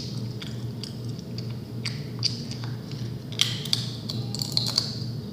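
Crunchy food being chewed: irregular crisp crunches, bunched together about three and a half seconds in, over a steady low hum.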